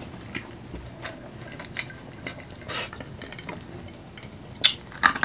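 Close-miked eating of adobo-braised chicken feet: wet chewing, smacking and sucking at the skin and bones, with scattered small clicks and a couple of sharper clicks near the end.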